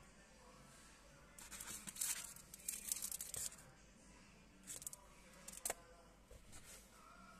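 Clear plastic sleeve around a sunglasses cleaning cloth crinkling as it is handled: a crackly burst of about two seconds, then two short crackles.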